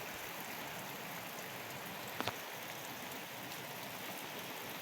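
Heavy rain falling steadily, with one sharp tap about two seconds in.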